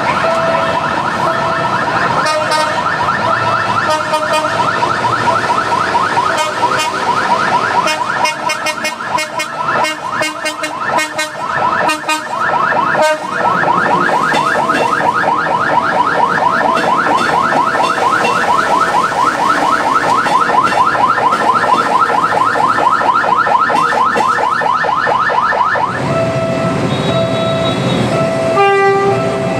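Ambulance siren sounding in a fast yelping warble, which cuts off about 26 seconds in; a repeated beeping tone carries on after it.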